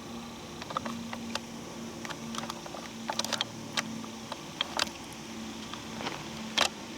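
Footsteps crunching through dry leaves and twigs on a forest floor, an irregular run of crackles and snaps, the loudest near the end.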